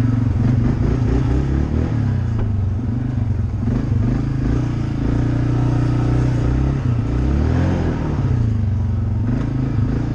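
Motorcycle engine running under way, its pitch dipping and climbing again twice as the throttle is eased off and reopened.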